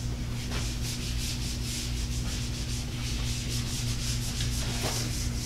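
A whiteboard eraser wiped across a whiteboard in quick back-and-forth strokes, a repeated dry rubbing hiss, over a steady low electrical hum.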